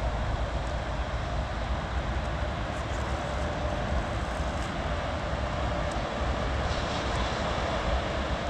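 Steady rain falling, with a low rumble of wind on the microphone.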